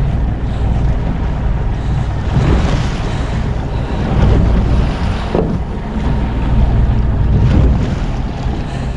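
Wind buffeting the microphone aboard a small fishing boat at sea, over a steady low rumble from the boat and the wash of waves. The wind noise swells and eases several times.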